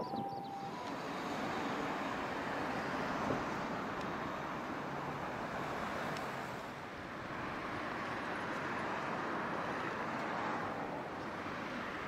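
Road traffic noise, a rush of passing vehicles that swells and eases. A siren tone cuts off about half a second in.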